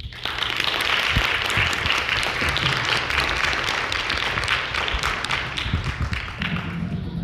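Audience applauding, starting suddenly as a sung number ends and tapering off near the end.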